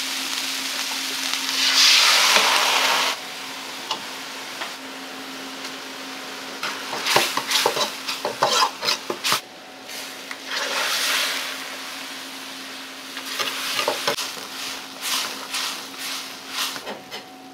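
A ladle stirring green onions and stock in a hot wok over a gas burner while the ankake sauce for tenshinhan is made: steady sizzling that surges loudly for about a second near the start, then runs of quick clacks of the metal ladle against the wok.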